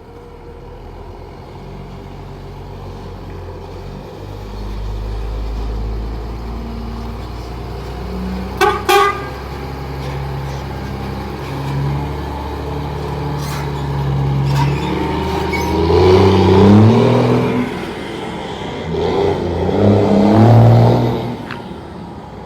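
Volkswagen Constellation diesel truck pulling away, its engine rumbling and rising in revs twice, with a drop between the two rises. Two short horn toots about nine seconds in.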